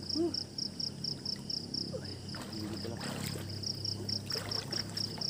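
Insects chirping in a fast, even pulse, about four chirps a second. Water sloshes and splashes around the middle and again near the end as a person wades neck-deep through a river.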